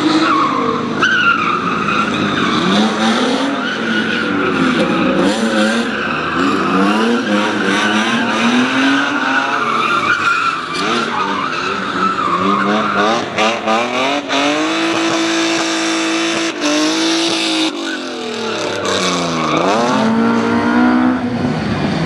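Competition cars revving hard through a slalom, their engine notes climbing and dropping again and again with throttle blips and gear changes, with tyres squealing and skidding on wet tarmac. About two-thirds of the way through, one engine holds a high, steady note for a few seconds before dropping and rising again.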